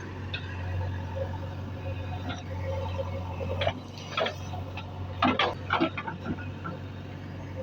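Diesel engine of earthmoving machinery running steadily with a low hum, with a cluster of short, sharp sounds a little past the middle.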